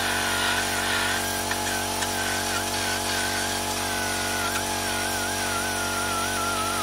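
A handheld power tool grinding metal on an RC truck's motor mount. Its whine wavers up and down as the pressure changes, over a steady mechanical hum.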